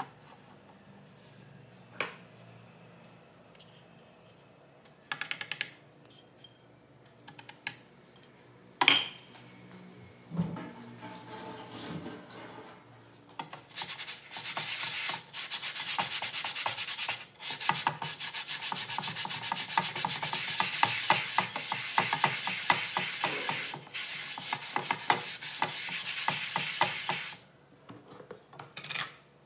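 A kitchen sponge scrubbing a dark-coated frying pan with dish soap in rapid back-and-forth strokes, starting about halfway through and stopping suddenly near the end. Before that there are a few short knocks and clicks.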